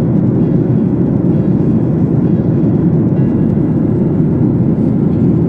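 Steady cabin noise of an airliner in cruise flight: the even, low drone of the engines and the air rushing past the fuselage, heard from a window seat.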